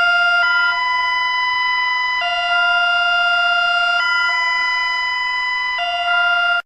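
Emergency alert alarm tone: a loud electronic chord of steady tones that alternates between two pitches about every two seconds and cuts off suddenly near the end.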